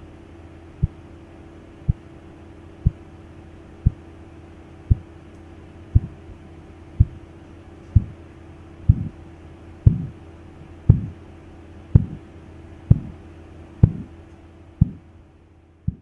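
Korotkoff sounds heard through a stethoscope over the brachial artery as the blood pressure cuff deflates. Regular thumps come about once a second over a steady low hum, grow louder toward the middle and fade near the end as the cuff pressure nears the diastolic pressure of about 60 mmHg.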